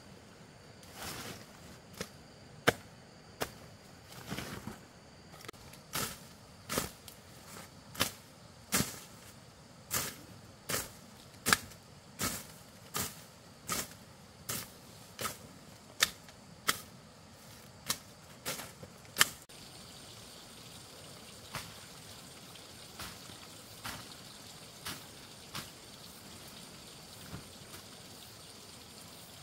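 Rhythmic sharp knocks, about three every two seconds, that stop abruptly about two-thirds of the way in; a steady faint hiss and a few weaker knocks follow.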